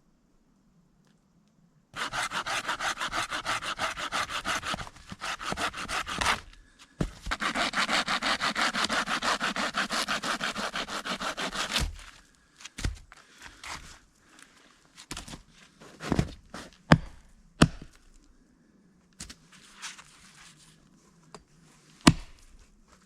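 A hand saw cutting through wood in two quick bouts of rapid, even back-and-forth strokes, followed by a few sharp knocks and cracks of wood.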